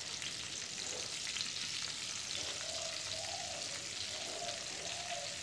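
Whole Indian olives frying in mustard oil in a kadai on a low flame, sizzling softly and steadily while coarsely pounded spice masala is tipped onto them.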